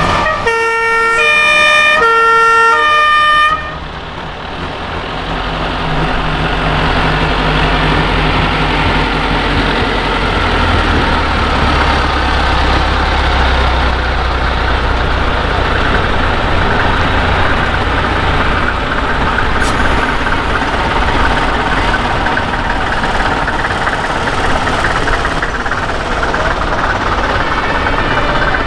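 A fire vehicle's two-tone siren horn sounds for about three seconds, switching evenly between two pitches, then cuts off. After it, vintage fire trucks' engines run past at parade pace, one louder and deeper about ten to fifteen seconds in as it goes by.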